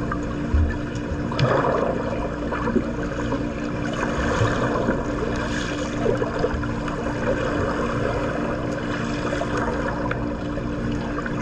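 Swimming pool water splashing and churning irregularly, over a steady low hum.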